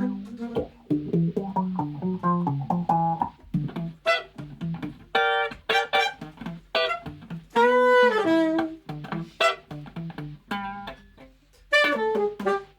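Instrumental passage of an acoustic soul-jazz song: plucked acoustic guitar with a saxophone line over it, the saxophone holding one long note about eight seconds in.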